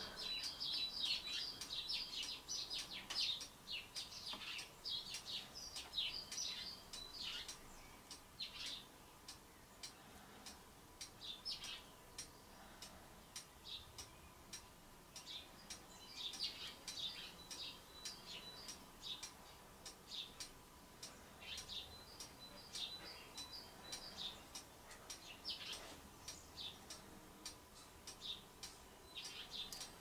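Small birds chirping, many short high calls in quick runs, busiest in the first several seconds and again from about halfway through, over a faint steady tone.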